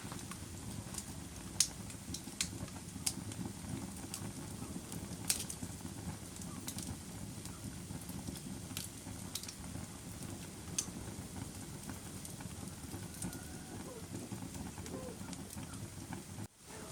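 Wood fire burning in a fireplace: a steady low rush of flame with irregular sharp crackles and pops, a few a second at most. The sound cuts out for a moment near the end.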